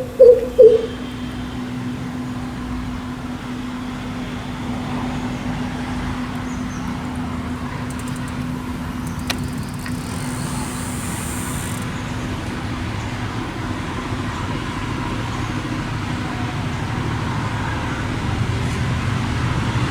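The last of a greater coucal's deep, loud hoots in the first second, then steady traffic noise with a constant low hum, slowly getting louder toward the end.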